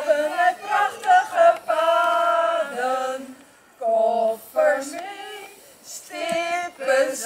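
A few women singing a song together, with a long held note about two seconds in.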